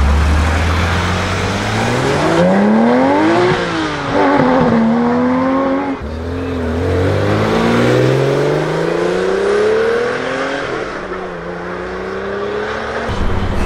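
Porsche 911 flat-six engines accelerating hard past the crowd. The first car's revs climb, drop at a gear change about three and a half seconds in, and climb again. After a break a second car's revs rise steadily for several seconds, then drop.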